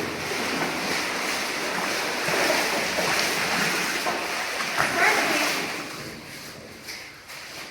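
Rushing, splashing water in a cave: a steady hiss of falling or running water that fades near the end.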